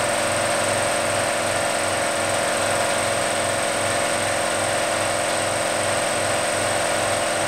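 A machine's motor running steadily, with a low throb repeating about two and a half times a second.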